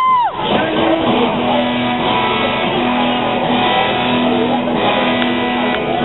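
Guitar strumming during a rock band's sound check, with a steady held note underneath and a short rising-then-falling pitch glide right at the start.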